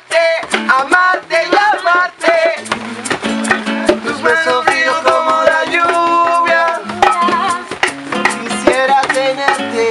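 Live acoustic music: a pair of maracas shaken in a quick, steady rhythm over a sustained instrumental accompaniment, with singing.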